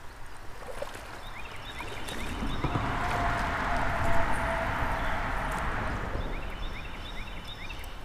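A vehicle passing by: a rush of road noise that builds and fades over about four seconds, with a steady hum in it.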